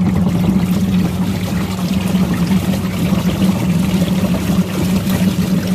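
Washing machine running: water sloshing and churning over a steady motor hum.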